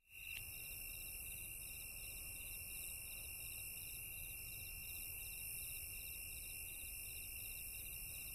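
Faint, steady chorus of night insects: several high trills at different pitches, repeating without a break, over a low rumble.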